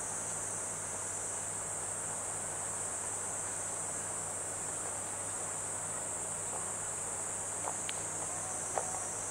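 Continuous, high-pitched insect trilling, even throughout, over a faint low steady hum. A few faint clicks come near the end.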